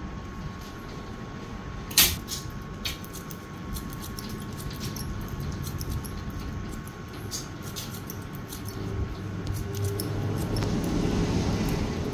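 Barber's thinning scissors snipping hair in a run of light clicks, with one sharp click about two seconds in. A low hum runs underneath and swells into a rumble near the end.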